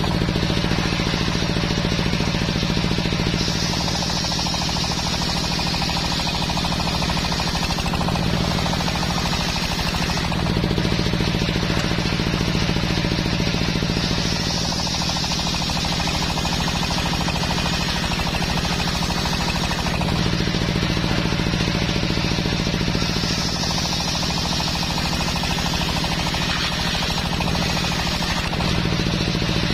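Large belt-driven circular saw bench ripping teak logs into planks, its drive running steadily. The sound of the blade cutting rises and falls every few seconds as the timber is fed through the blade and drawn back.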